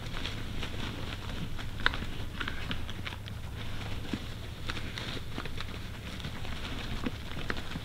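Two whitetail deer sparring: irregular clicks and scuffs of antlers knocking and hooves shuffling in dry leaves, over a steady low hum.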